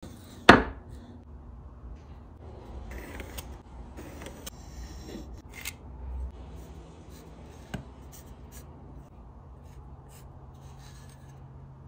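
Pine boards set down on a wooden workbench with one sharp knock about half a second in, then quiet handling of the wood with small clicks, and a pencil scratching as cut lines are marked against a square. A low steady hum runs underneath.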